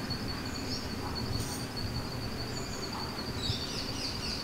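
Background ambience of a steady, high-pitched insect drone with bird chirps over it. A quick run of repeated falling chirps starts a little after three seconds in.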